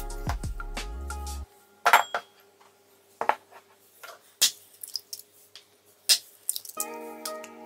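Eggs cracked against the rim of a ceramic bowl: sharp, separate knocks a second or so apart. Background music stops about a second and a half in and returns near the end.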